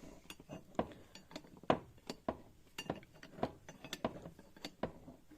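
Irregular light metallic clinks and knocks, a few each second, with one sharper knock about two seconds in: metal engine parts and tools being handled on a bench.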